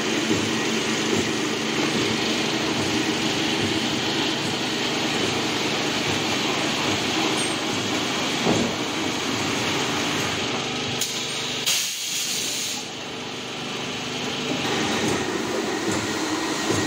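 A 5 ft spindleless veneer peeling lathe running: a steady motor and gearbox hum under the hiss of the log being peeled into a veneer sheet. The sound drops off briefly about twelve seconds in, then picks up again.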